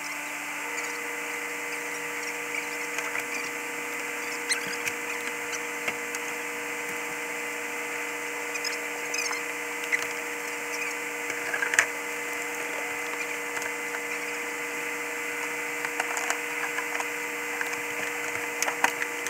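A steady mechanical hum made of several held tones, with scattered light knocks and clicks.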